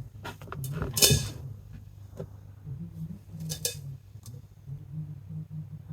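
Old oil draining from an air compressor's crankcase into a catch pan, with scattered clinks and drips, the biggest splash about a second in, over a low steady hum.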